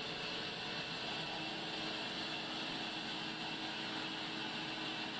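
Large vertical band saw running and ripping a thin log lengthwise as it is fed through the blade: a steady, even hiss with a faint constant hum underneath.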